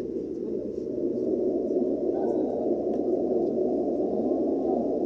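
Steady airliner cabin noise: an even, low rush of engine and airflow sound with no breaks.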